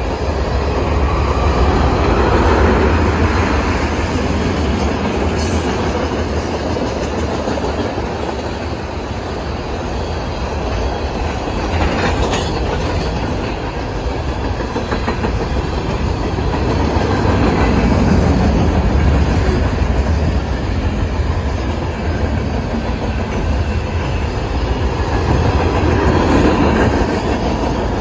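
Freight cars rolling past: steel wheels rumbling and clicking over the rail joints in a steady clickety-clack, rising and falling in slow swells as the cars go by.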